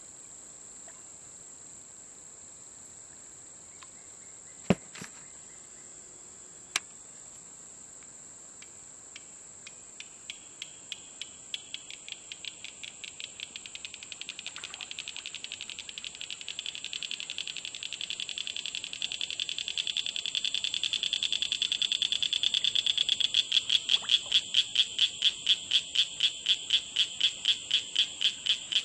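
Steady high-pitched insect drone, joined about a third of the way in by a rhythmic clicking animal call that starts sparse and grows steadily faster and louder. Two sharp clicks come early on.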